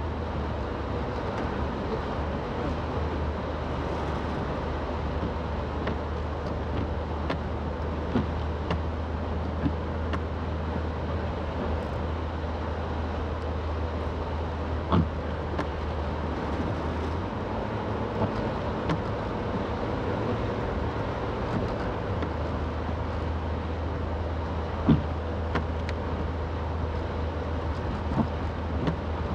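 Car driving, heard from inside the cabin: a steady low engine drone with tyre and road noise, and a few scattered sharp knocks.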